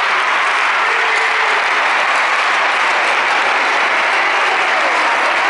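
Steady applause from spectators in a sports hall, with a few faint voices under the clapping.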